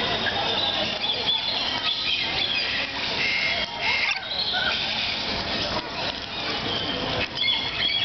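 Rainbow lorikeets chattering and squawking: a dense run of short, high-pitched screechy calls.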